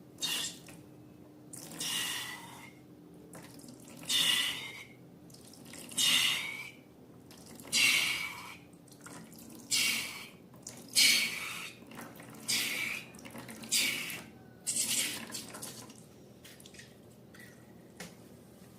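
Slime being worked by hand, about ten short sounds coming every one and a half to two seconds and stopping after about fifteen seconds.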